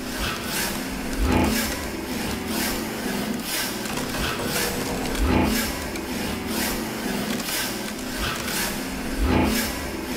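Soundtrack of rhythmic rasping scrapes repeating less than a second apart over a steady low drone, with a deep thud about every four seconds.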